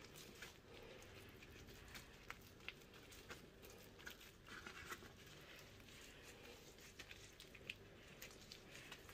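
Faint, irregular crackling of dried corn husks as hands fold and press them around a ball of kenkey corn dough.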